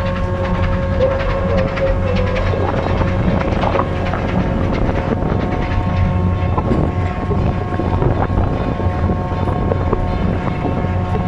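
Steady drone of a roll-on/roll-off ferry's diesel engines and machinery, a deep hum with a few constant higher tones on top.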